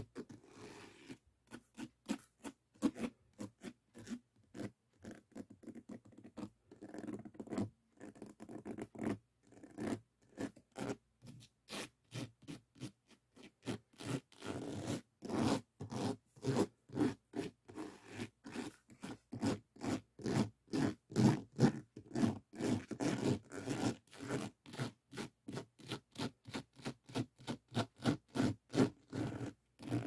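Fingers scratching and rubbing across the beaded surface of a finished diamond painting's resin drills, in quick repeated strokes. The strokes are sparse and soft at first, then come faster and louder, about two or three a second, from about halfway in.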